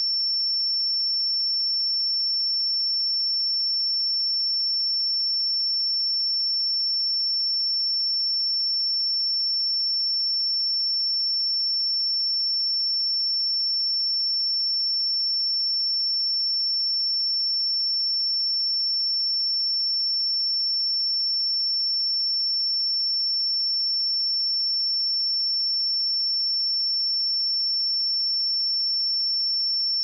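A pure 5415 Hz sine-wave test tone, a single high-pitched steady tone held at a constant level.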